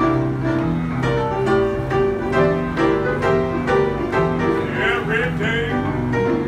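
Two upright pianos played together in a lively jam, chords over a moving bass line with a steady run of notes. A short high wavering sound rises over the piano about five seconds in.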